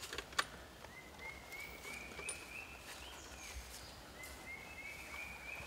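A bird calling a long run of short, even notes that climb slightly in pitch and then start over lower, over faint forest ambience. There is a single sharp click about half a second in.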